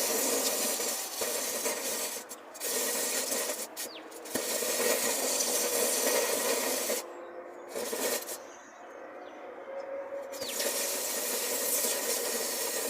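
Burning battery hissing and rasping as it vents, a harsh rushing sound that cuts out briefly a few times and dies down for about two seconds past the middle before starting again.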